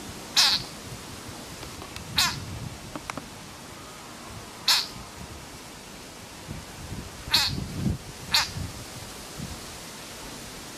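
A frog's distress screams, five short, high, cat-like cries a second or two apart, the call of a frog seized by a snake.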